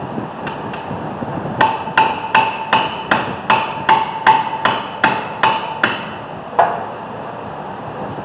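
Hammer striking a screwdriver set in a seized, corroded Phillips brake-rotor retaining screw to shock it loose: a quick run of about a dozen ringing metal blows, then one more blow a moment later.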